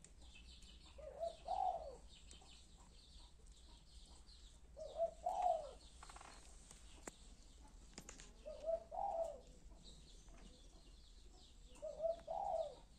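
A dove cooing four times at even intervals of about three and a half seconds, each call a short note followed by a longer rising-and-falling coo. Small birds chirp faintly behind it.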